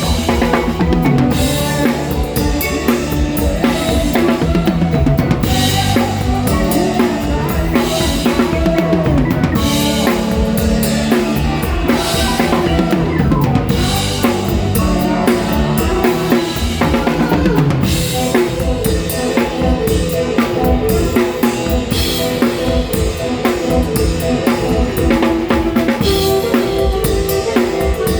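Live band playing a Thai folk-rock song, with the drum kit to the fore: kick drum, snare and rimshots driving a steady beat under guitar and bass.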